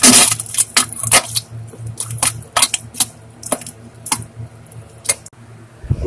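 Wet, spluttering diarrhea farts: a loud splat at the start, then irregular sharp crackles and pops, over a low steady hum.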